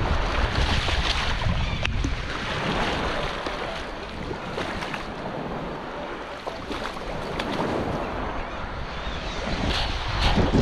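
Wind buffeting the microphone over small waves lapping at the water's edge, with a fish splashing in the shallows as it is landed and handled. The wind rumble eases in the middle and picks up again near the end.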